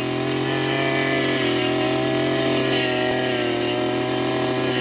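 Backpack petrol brush cutter's two-stroke engine running at a steady speed while it cuts grass and weeds.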